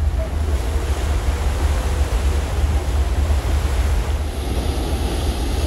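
Wind buffeting the microphone and water rushing past on the open deck of a ferry under way, a steady deep rumble with a hiss over it. About four seconds in a higher steady drone joins.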